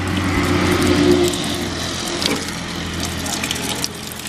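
Running water pouring onto green mangoes and splashing into a plastic bucket of water as hands rub and wash the fruit. A low steady hum lies under the water in the first two seconds.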